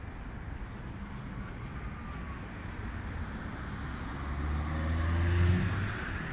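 City street traffic: a steady low rumble, then about four seconds in a car engine grows louder, rising slightly in pitch as it passes close, and fades near the end.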